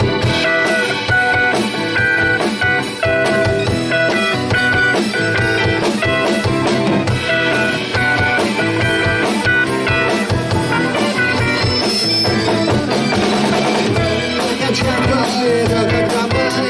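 Rock band playing an instrumental passage of the song, with the drum kit keeping a steady beat under guitar and other instruments.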